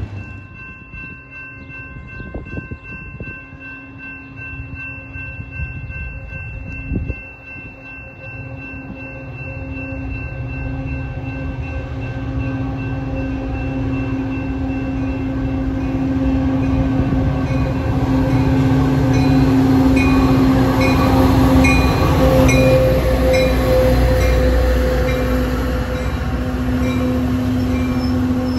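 A Metra diesel commuter train approaches and passes at speed. The rumble of the locomotive and the rolling bilevel cars builds to a peak past the halfway point, over a steady tone and a bell dinging repeatedly.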